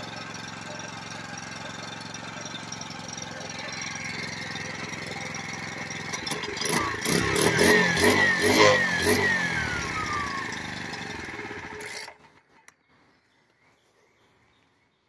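Makita EK7651H cutoff saw's four-stroke gas engine running just after being pull-started on its freshly repaired recoil starter. The engine is revved up and down several times, then its pitch falls away, and it stops abruptly about twelve seconds in.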